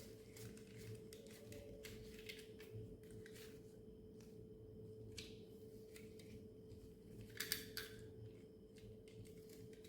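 Faint scattered clicks and taps of small plastic toy parts being handled, with a small cluster of sharper clicks about seven and a half seconds in, over a steady faint hum.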